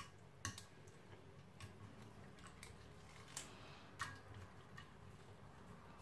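Hands working fish pieces in chermoula marinade on a ceramic plate: faint handling with a few light clicks against the plate, the clearest about half a second in and twice near the middle.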